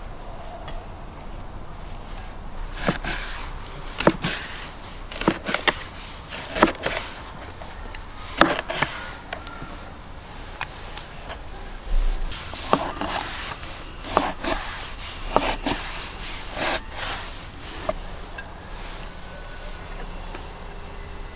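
Kitchen knife chopping sturgeon into chunks on a wooden cutting board: a dozen or so sharp, irregular knocks of the blade hitting the board, spaced about a second apart, with a short lull midway.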